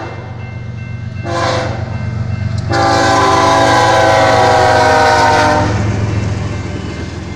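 BNSF diesel locomotive's multi-chime air horn, sounded for a road grade crossing: a short blast about a second in, then a long, loud blast of about three seconds. Under it runs the steady low rumble of the passing locomotive and train.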